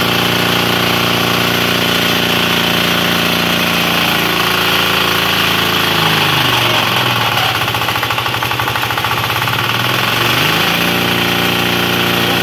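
Small stationary engine running on plastic pyrolysis oil, mounted on a belt-and-band-brake torque test rig. It runs steadily, then partway through its speed sags for several seconds and climbs back up to its earlier pace.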